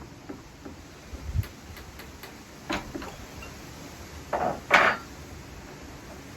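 Metal engine parts and tools being handled during a teardown. A low thud, a few light clicks, a clank, then two louder metallic clatters close together near the end.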